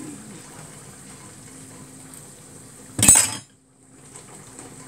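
A utensil stirring thick béchamel sauce in a metal pan with a faint scraping, then a sharp clatter of the utensil against the pan about three seconds in, after which the sound briefly cuts out.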